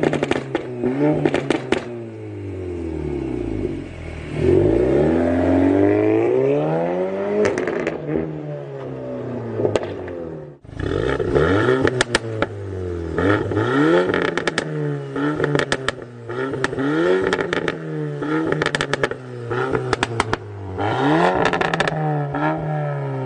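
Volkswagen Golf 8 R's turbocharged 2.0-litre four-cylinder revved again and again through its quad exhaust. Each rev rises and falls away with a rattle of crackles and pops on the overrun, the sign of a crackle-map tune. The sound breaks off for a moment about ten and a half seconds in, then the revving resumes.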